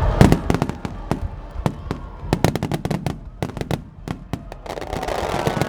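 Aerial fireworks bursting in a rapid, irregular series of sharp bangs and crackles, the loudest just after the start.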